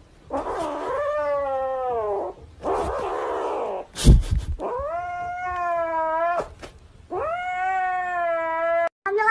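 Grey kitten calling in three long drawn-out cries, each dropping in pitch at the end, while it clutches a plush toy against a reaching hand. A hiss-like rush of noise comes between the first two cries, and a sharp knock sounds about four seconds in.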